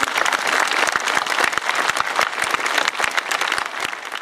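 Audience applauding: dense, steady clapping from a large crowd, beginning to fade near the end.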